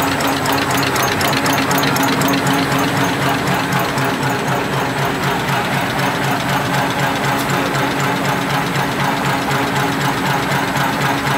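Four-line napkin tissue folding machine running at speed: a steady, rapid, even mechanical clatter over a constant motor hum.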